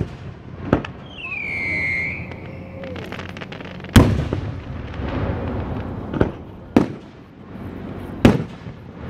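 Fireworks shells bursting overhead: five sharp bangs, the loudest a boom about four seconds in, preceded by a quick crackle. A short high whistle glides down between one and two seconds.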